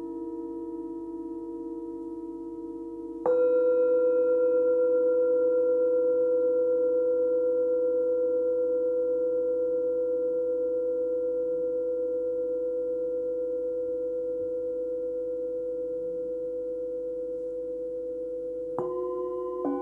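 Hand-forged Tibetan singing bowl struck once with a mallet about three seconds in, ringing one clear note that fades slowly over some fifteen seconds, above the fading hum of a bowl struck earlier. Near the end a second, lower-pitched bowl is struck.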